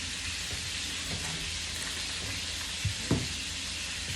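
Chicken frying in hot oil, a steady sizzle throughout, with two short knocks about three seconds in.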